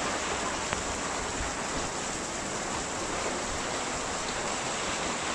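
Rain falling steadily: an even, unbroken hiss of water.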